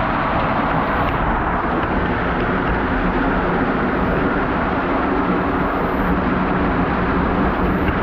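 Waterfall pouring at close range, a loud steady rush of falling water splashing over the camera.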